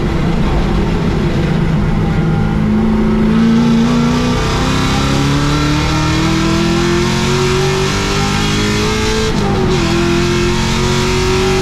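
Holden VY Commodore race car engine, heard from inside the cabin, pulling hard under acceleration with its pitch climbing steadily. About nine seconds in the pitch drops sharply at an upshift, then starts climbing again.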